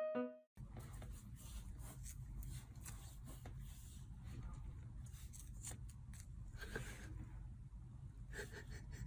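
Faint room noise: a low hum with scattered light scratching and clicking sounds.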